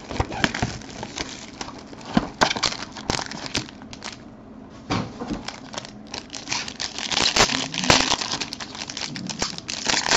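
Silver foil wrapper of a trading-card pack crinkling and crackling as it is pulled from its cardboard box and opened by hand, with irregular rustles and a quieter pause about four seconds in.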